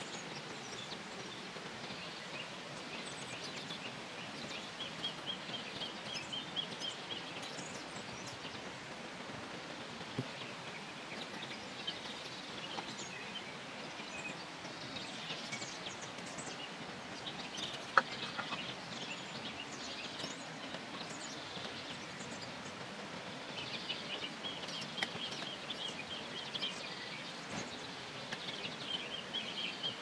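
Birds chirping and trilling in short repeated phrases over a steady background hiss, with a single sharp click past the middle.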